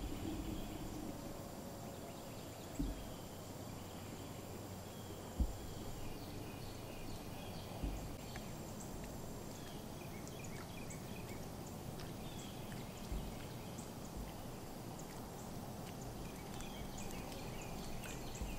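Outdoor ambience: scattered faint bird chirps over a steady background noise, with a few soft low thumps.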